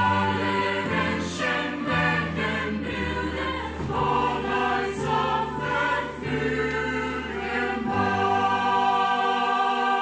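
Mixed choir of young men's and women's voices singing sustained chords, the men holding low notes under the women's higher parts, ending on a long held chord for the last two seconds.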